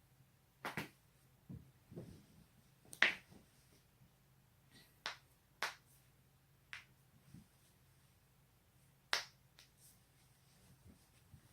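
Joints being cracked: a string of short, sharp pops at irregular spacing, the loudest about three seconds in and another strong one about nine seconds in.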